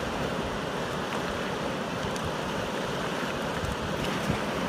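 Fast-flowing river rushing steadily over a stony bed. A thrown cast net lands on the water about four seconds in with a brief splash.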